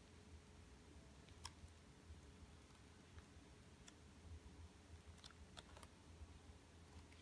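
Near silence with a few faint clicks and rustles of paper as the pages of a large photo book are leafed through by hand.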